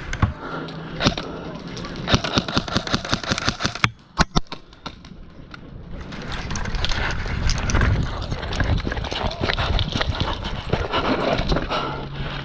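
Airsoft guns firing: rapid runs of sharp snapping shots, densest about two to four seconds in, then scattered shots over a rustling, noisy background.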